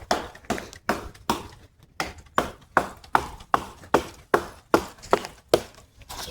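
Wood being chopped with quick, evenly spaced strikes, about two or three a second, each a sharp crack with a short ring.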